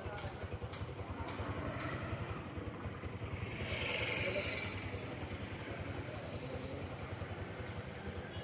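An engine running steadily with a fast low throb, and a hiss that swells and fades around the middle.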